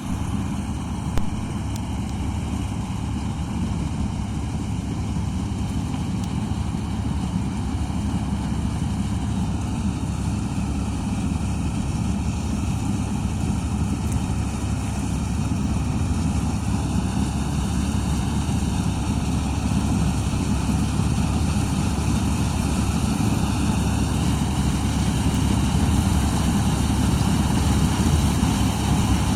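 New Holland M135 running steadily under load while harvesting soybeans, its engine and machinery giving a continuous low rumble that grows slightly louder toward the end. A brief knock sounds about a second in.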